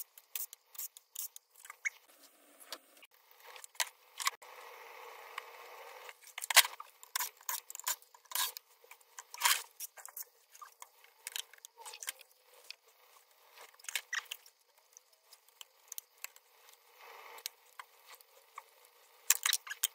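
Scattered sharp clicks and metallic clinks of screws and tools being handled as screws are taken out of an old sewing machine's cast-aluminium case, with a softer rasping stretch a few seconds in.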